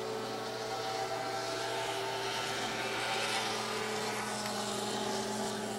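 Steady mechanical hum with hiss, holding one unchanging pitch.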